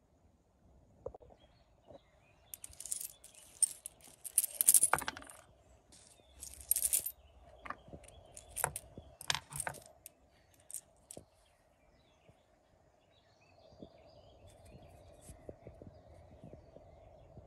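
A handful of British coins clinking and clattering against each other as they are sorted by hand on a scouring pad, in a run of sharp clinks from about two seconds in until about ten seconds in, then only a few light clicks. A faint steady hum runs underneath.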